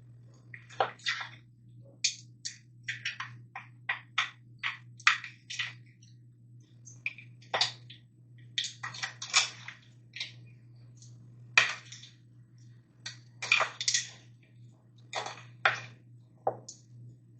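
Marinated chicken wings being laid one by one onto a metal air fryer crisper tray: irregular clicks and taps, one to three a second.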